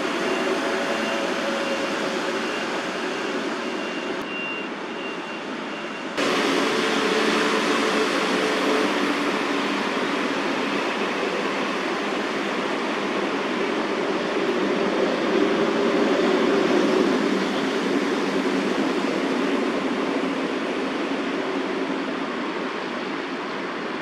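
Steady road-traffic noise, a constant hiss over a low hum. It gets suddenly louder about six seconds in.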